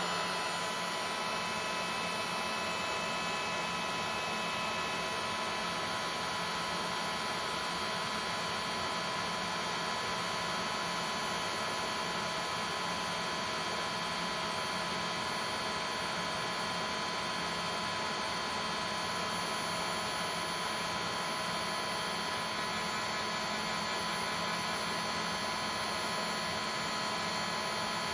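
DeWalt heat gun running steadily: a constant rush of blown air with a fixed high whine, used to shrink adhesive-lined heat-shrink tubing over the end of a cable.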